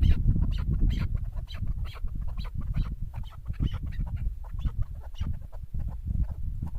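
Chukar partridge (chakor) calling: a rapid run of short clucking notes, about three a second, over a steady low rumble.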